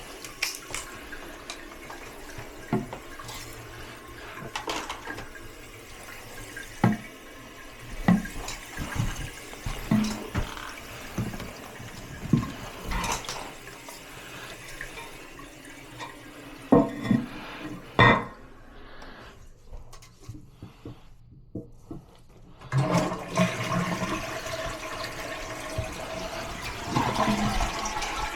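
Scattered clicks and knocks, then, after a short quiet gap, a toilet fitted with a newly replaced flush valve flushes: water rushes steadily with a faint rising tone underneath.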